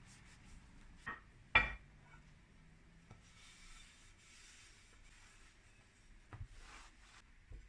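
Handling noises: a loud sharp knock about a second and a half in, a few lighter knocks, and soft rubbing or scraping sounds in between.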